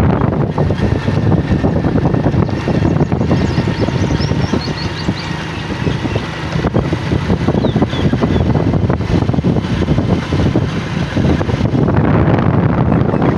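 Ride along a paved road in a moving vehicle: steady wind buffeting on the microphone mixed with engine and road noise, a little louder near the end. Faint high chirps come through a few seconds in.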